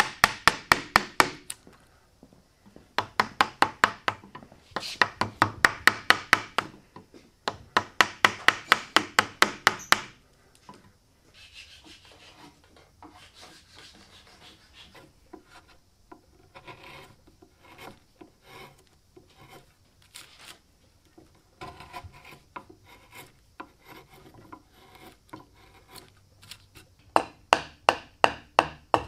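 Hand carving wood. For the first ten seconds, bursts of rapid sharp wooden clicks, about six a second, come as a carving gouge cuts into a cypress canoe hull. A long, quieter stretch of faint scraping and tapping follows, and near the end a hatchet chops a wood block in quick, loud strokes.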